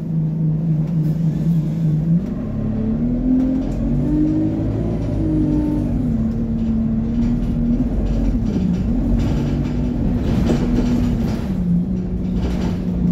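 A bus engine and transmission heard from inside the cabin while the bus is moving. The drone climbs in pitch for a few seconds as the bus accelerates, drops back with a gear change about five seconds in, then holds steady, with a few rattles, before falling again near the end.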